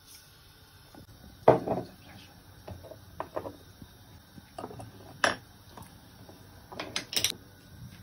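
Kitchen utensils clinking and knocking against a stainless steel mixing bowl as spices are spooned in. The knocks come one at a time, the loudest about a second and a half in, with a quick cluster near the end.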